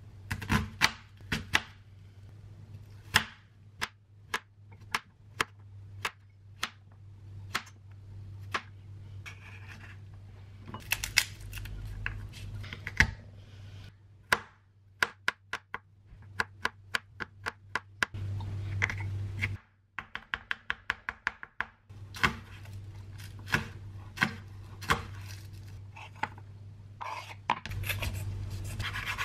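Kitchen knife chopping onion and garlic on a bamboo cutting board: sharp knocks of the blade on the wood, some single and some in quick runs of about five a second. A steady low hum runs underneath.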